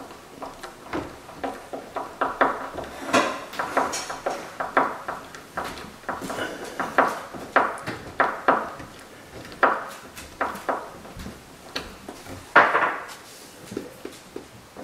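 Irregular series of short knocks and clatters of hard objects, about two or three a second, with one louder knock near the end.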